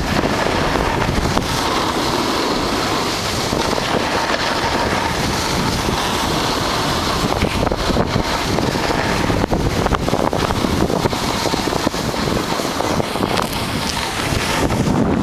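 Wind rushing over the microphone of a snowboarder riding fast downhill, with the steady hiss and scrape of the board sliding on packed snow.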